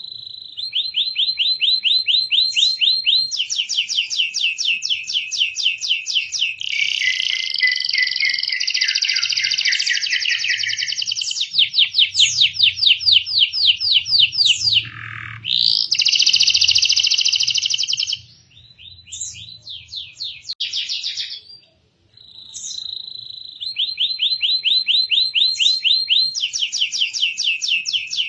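Canary singing in long, fast trills, one rolling phrase after another at high pitch, with a falling whistle about halfway through and a brief pause near two-thirds of the way in.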